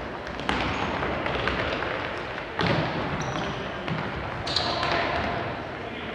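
Futsal ball being kicked and bouncing on a wooden sports-hall floor: several sharp thuds, each ringing on in the echo of a large hall.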